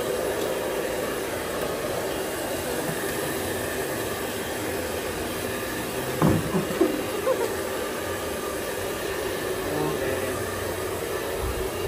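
Handheld hair dryer blowing steadily as it is used to dry a wet puppy's coat. A few short, louder sounds cut through it about six seconds in.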